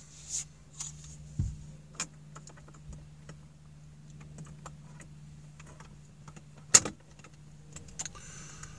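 Scattered small clicks and knocks of handling inside a car cabin over a steady low hum. The hum stops at a sharp click about seven seconds in.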